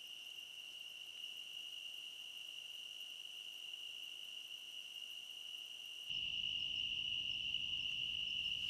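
Crickets trilling at night: one steady, unbroken high-pitched tone. About six seconds in it grows louder and a low hiss joins it.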